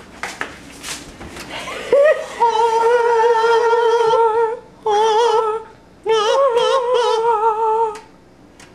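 A person humming a high held note with a wavering vibrato, three long notes broken by short breaths. A few light clicks and knocks come first.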